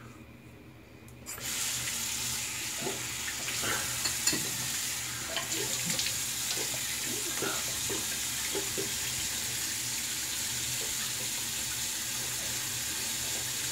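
A sink tap is turned on about a second in and left running steadily into the basin. Scattered splashes and small knocks come through the running water during the first half.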